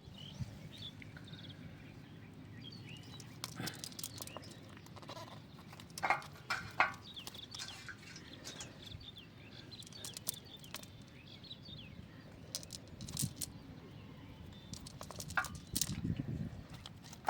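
Outdoor ambience with small birds chirping, over a steady low background and scattered sharp clicks and knocks, the loudest about six and seven seconds in.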